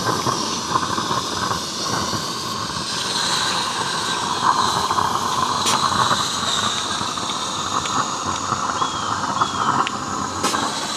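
Accucraft Edrig live-steam garden locomotive running with a steady steam hiss, its safety valve popping off, with a few sharp clicks. The blow-off is put down to leaking water turning into steam.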